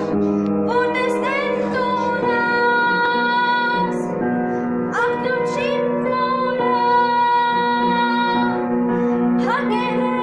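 Upright piano played as a song accompaniment, with a girl's voice singing along.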